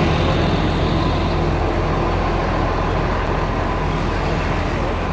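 Busy street traffic noise, with the steady hum of a large vehicle engine running.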